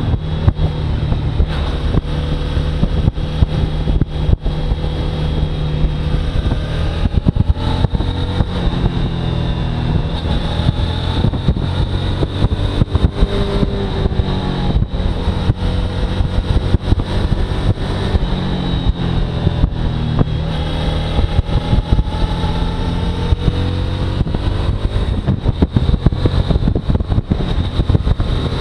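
Suzuki V-Strom motorcycle engine running under way, its pitch rising and falling with the throttle, with wind noise on the microphone.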